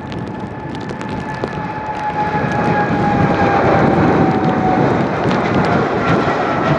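Boeing 777-200LR's twin GE90 turbofans at takeoff power: a roar that swells to its loudest about halfway through, with a high fan whine sliding slowly down in pitch.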